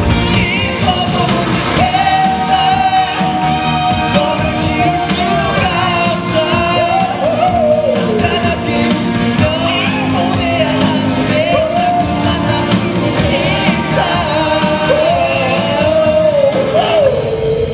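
Pop music: a singer's voice carries a melody of long, wavering held notes over a band with a steady beat, ending on a long held note.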